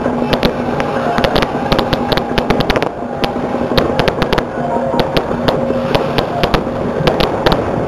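Firecrackers popping in rapid, irregular cracks, several a second, over crowd noise and a few steady held tones.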